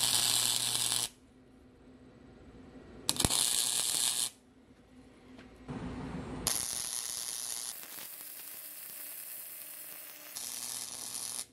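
Wire-feed welder arc crackling as weld beads are laid on a steel shaft coupler, strengthening its tack welds. Three bursts with abrupt starts and stops: about a second at the start, another about three seconds in, then a longer run of about five seconds that carries on to the end.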